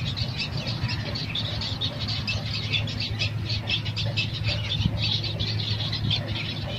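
Small birds chirping rapidly and continuously, over a steady low hum.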